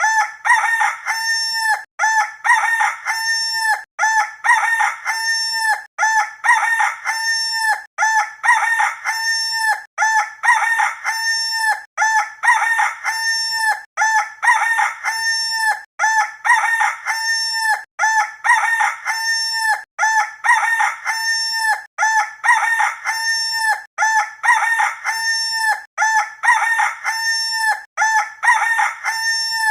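A rooster crowing, the same crow repeated back to back about every two seconds with no pause between.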